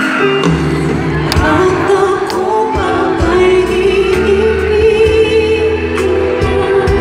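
A woman singing live into a microphone over a band, amplified through a concert sound system and recorded from the audience; the bass comes in about half a second in, with occasional drum hits.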